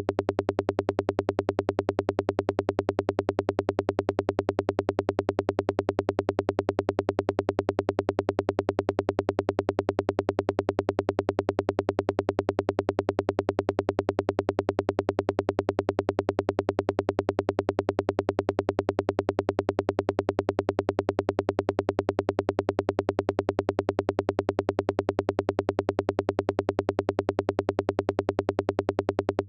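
Modular synthesizer patch in VCV Rack playing a rapid, evenly repeating pulse at a steady low pitch, unchanging throughout: a forest psytrance sound effect being built.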